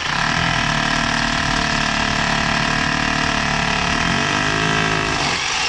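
Milwaukee hammer drill with a quarter-inch masonry bit running steadily under load while drilling an anchor hole into the wall. Its pitch shifts about four seconds in.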